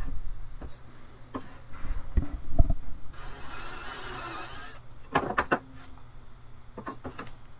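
Cordless drill with a small twist bit boring a hole through a wooden board, running for about a second and a half midway. Short knocks of the board being set down and handled on the workbench come before and after.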